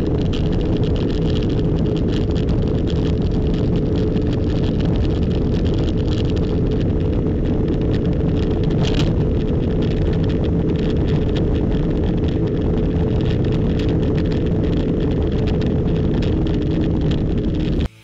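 Sports car running flat out at about 320 km/h top speed, recorded on board: an engine note held steady at constant high revs under a rush of wind and road noise, cutting off near the end.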